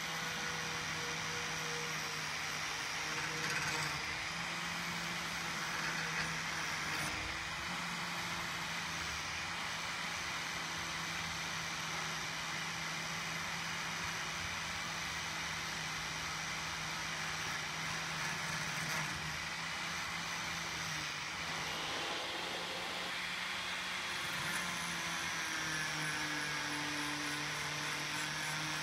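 Angle grinder running steadily with its disc pressed against a rusty steel knife blade. A constant motor hum sits over the hiss of abrasion, and the pitch shifts slightly about three quarters of the way through.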